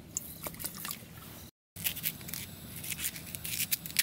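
Water poured from a plastic bottle into a small camping pot of uncooked rice, with faint wet clicks. After a short break, sharp clicks and crunchy handling noises follow as hands work green chillies over the pot on a camping gas stove.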